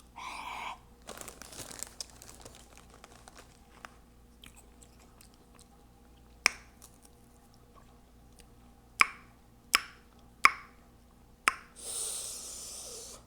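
Close-miked mouth sounds of someone eating Hot Cheeto Puffs: a crunching bite about a second in, soft chewing, then five sharp wet mouth smacks over the second half.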